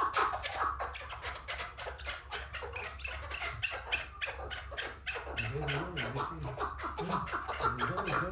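White chukar partridge calling in a rapid series of short, sharp clucking notes. About five seconds in, a lower rising-and-falling sound starts repeating alongside them.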